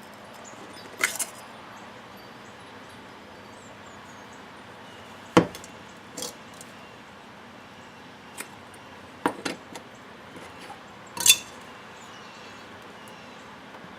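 Metal parts of a cut-open oil filter clinking and knocking as they are handled and pulled apart: about seven separate sharp clinks, the loudest about five and a half and eleven seconds in.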